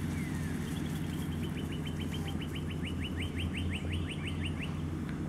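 A songbird singing a fast trill of short repeated notes, about six a second, lasting about four seconds, over a steady low hum.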